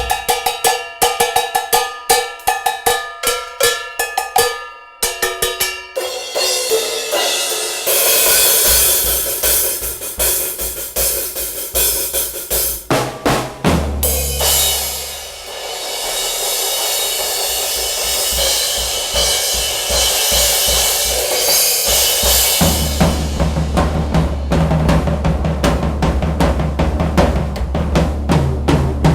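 Drum kit played: a quick run of ringing drum strokes, then a long spell of cymbal wash with scattered hits, settling near the end into a steady beat with a heavy bass drum.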